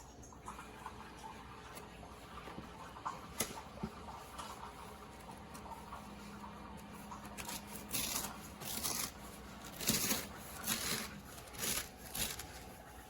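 Handling and rustling noise: a few small clicks and taps, then, from about seven seconds in, about half a dozen short rustling strokes, like fabric or packaging being rubbed or pulled.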